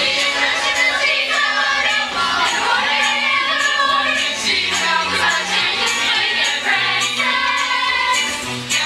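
Ensemble of many voices singing a musical-theatre number together over instrumental accompaniment, with a steady jingling percussion beat.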